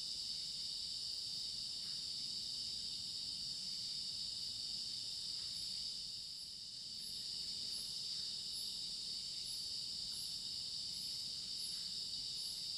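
Night chorus of crickets and other insects: a steady, shrill, high buzz, joined about halfway through by a faint chirp repeating about twice a second.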